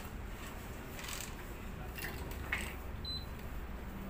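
Tennis string being handled and pulled through a racket frame on a stringing machine: several brief rustles and small clicks over a low steady hum, with a short high beep about three seconds in.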